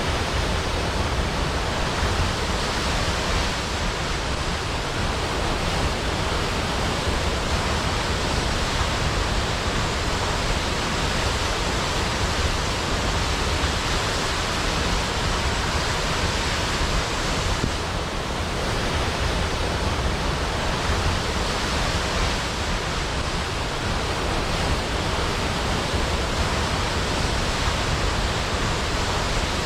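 Large waterfall: a steady, even rush of falling water with a deep rumble underneath, unchanging throughout.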